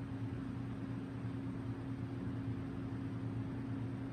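Steady electrical hum of a motor, with an even hiss and no change in level.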